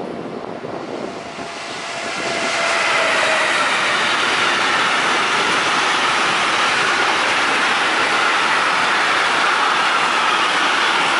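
Intermodal freight train headed by electric locomotives passing close by: the noise swells about two seconds in as the locomotives go past. Then comes the steady rumble and clatter of the trailer-carrying wagons rolling over the rails, with a faint high wheel squeal.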